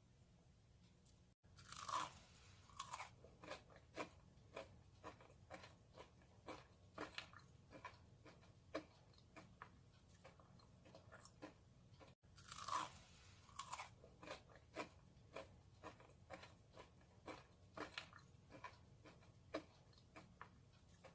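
Someone biting into crispy pan-fried sweet potato pancake (goguma-jeon) and chewing it, with a loud crunch on each bite and steady crisp crunches about twice a second as they chew. There are two bites, one near the start and one about halfway.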